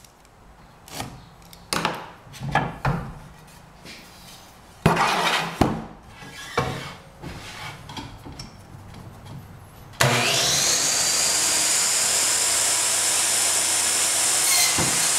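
Knocks and scrapes of a wooden board being marked and set against the fence. About ten seconds in, a Ryobi miter saw's motor starts with a rising whine and runs steadily as the blade crosscuts the 1x2 board, starting to wind down at the very end.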